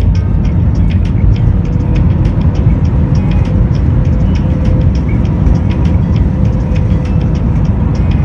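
Passenger jet cabin noise while rolling along the runway: a loud, steady low rumble from the engines and wheels, with light ticks and rattles from the cabin fittings.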